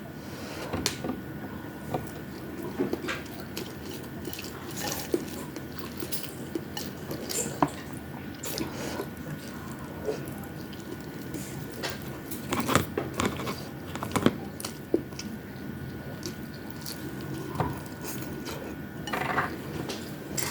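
A person eating fried fish and rice: chewing, with irregular clicks and taps of utensils on dishes, over a faint steady high hum.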